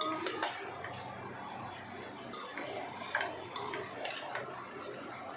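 Metal ladle stirring and scraping thick carrot halwa in a kadhai, with irregular clinks and scrapes against the pan.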